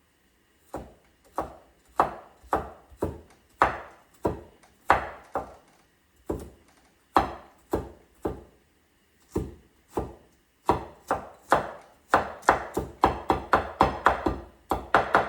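Kitchen knife chopping bok choy on a cutting board: separate sharp strikes, about two a second, quickening to a faster run of chops near the end.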